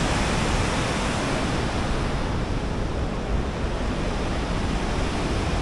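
Wind buffeting the microphone: a steady rushing noise with a low, fluttering rumble.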